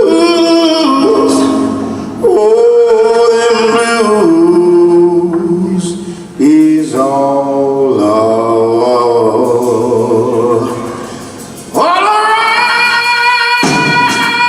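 Live blues band with a male singer holding long, wordless notes that bend in pitch, phrase after phrase. About twelve seconds in, the band holds a sustained chord, with sharp drum hits near the end.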